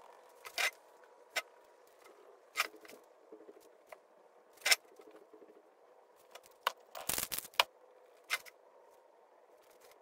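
Aerosol spray-paint can sprayed in short, sharp bursts, about eight in all with a quick cluster about two-thirds of the way through, over a faint steady hum.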